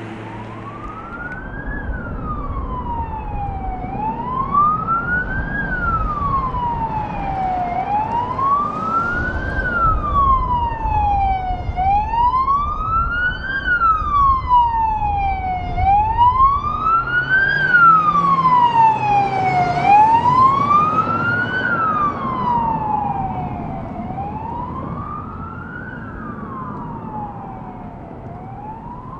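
Emergency vehicle siren on wail, rising and falling slowly about once every four seconds, over road noise. It grows louder toward the middle and fades near the end as the vehicle passes.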